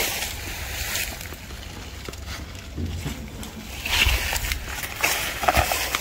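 Leaves and cucumber vines rustling and brushing as a person moves through the patch to harvest, over a steady low rumble. The louder brushes come about four and five and a half seconds in.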